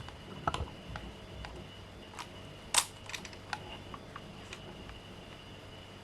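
Scattered light clicks and taps, a few close together about half a second in and one louder click near the middle, over a faint steady high-pitched tone.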